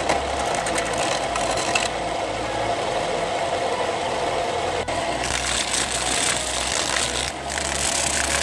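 Wood lathe motor running steadily while a teak-root blank spins, with a turning chisel scraping the wood in the first couple of seconds and sandpaper hissing against the spinning wood in the second half.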